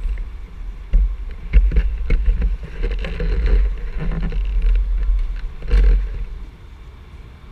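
Muffled rumbling, rubbing and sharp knocks on a camera's microphone as the camera is handled and moved, in step with the driver's helmet coming off. The noise stops about seven seconds in.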